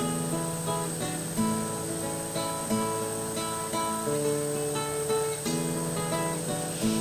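Background music: acoustic guitar playing picked notes and strums at a steady pace.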